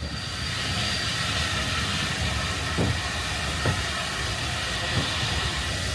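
Moving steam-hauled passenger train heard at an open carriage window: a steady rush of wheel and air noise, with a few sharp knocks from the wheels.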